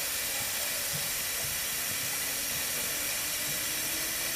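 Aerosol can of chain lube spraying onto a turning motorcycle drive chain in one long, steady hiss.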